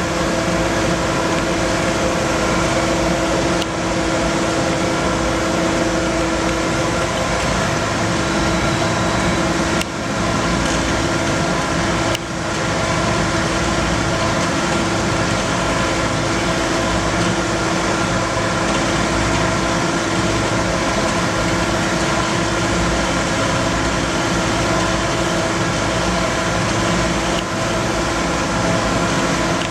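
Steady machine hum: a constant drone of several steady tones over a continuous whir, dipping briefly a few times.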